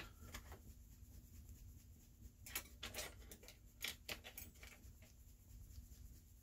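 Near silence: room tone with a low hum and a few faint, scattered clicks.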